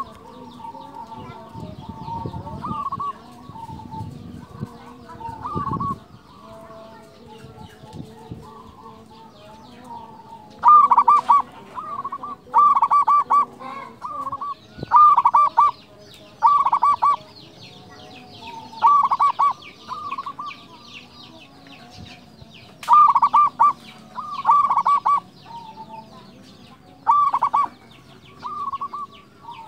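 Zebra dove (perkutut) cooing in repeated loud phrases of rapid, staccato coos, softer at first and becoming loud about a third of the way in. Faint high chirps of small birds go on behind it.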